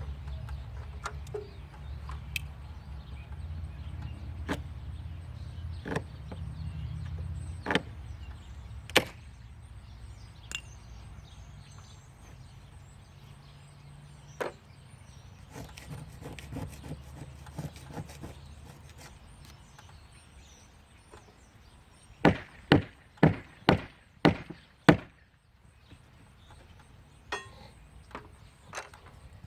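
Scattered sharp clicks and knocks from hand work on the shed's siding. Near the end comes a quick run of about seven loud knocks over some three seconds. A low rumble lies under the first two-thirds.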